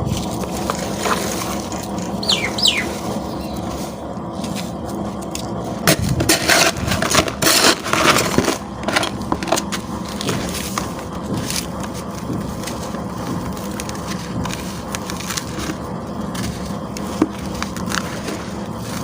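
Cement chunks being scraped and crumbled by hand: irregular gritty crunches, busiest and loudest from about six to nine seconds in, over a faint steady hum.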